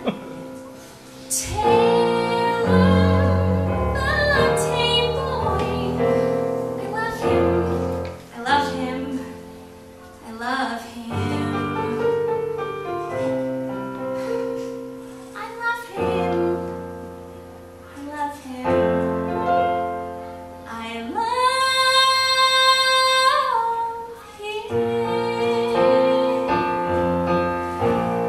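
Female solo voice singing a comic musical-theatre song over piano accompaniment, with one long held high note about three-quarters of the way through.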